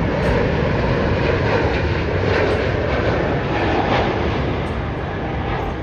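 Jet engines of a twin-engine widebody airliner on final approach, passing low overhead with a steady, loud roar that eases slightly near the end as it moves away toward the runway.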